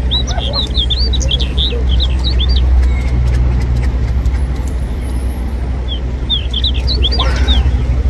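Small birds chirping in quick runs of short, high chirps: a dense run in the first two and a half seconds and another around seven seconds in. Under it is a steady low rumble.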